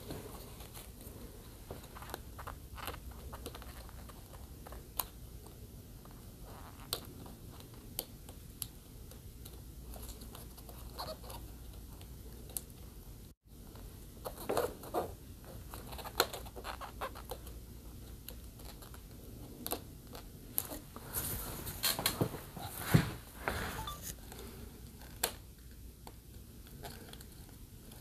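Light handling sounds of adhesive tape being peeled and pressed onto a TV panel's ribbon-cable connector: scattered small clicks, rustles and short tearing sounds, with a busier cluster of taps and scrapes about three-quarters of the way through.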